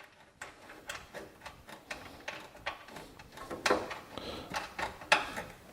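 Irregular light clicks and taps of a socket and tool on the small metal nuts and bracket of the hood ajar switch, with a few louder knocks near the middle and end.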